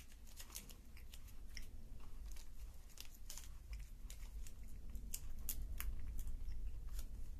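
A person chewing a crunchy chocolate-coated coconut wafer bar: a run of irregular, crisp crunches.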